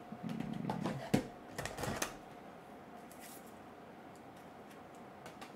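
Trading cards being handled off the table, giving a few light clicks and rustles in the first two seconds; after that there is only a faint steady hum.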